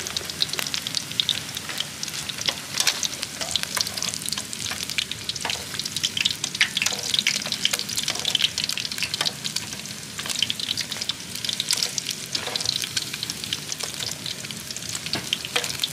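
Battered cá linh, a small river carp, frying in oil: a steady sizzle with a dense, irregular crackle of small pops.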